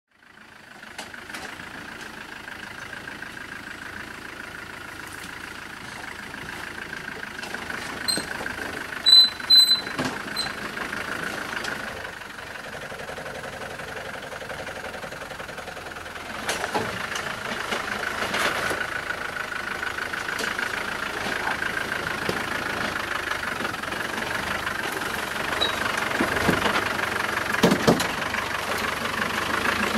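Land Rover Discovery's engine running at low speed as it crawls over a rocky dirt track, with scattered knocks. A cluster of short, high electronic beeps sounds about eight to ten seconds in.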